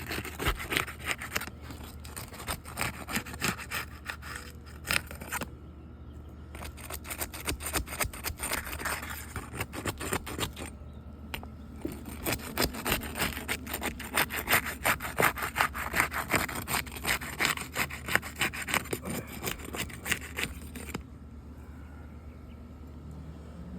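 Roofing shingles being scraped and pried loose from their adhesive seal strips, in quick repeated rasping strokes. There are short pauses about 6 and 11 seconds in, and the scraping stops shortly before the end.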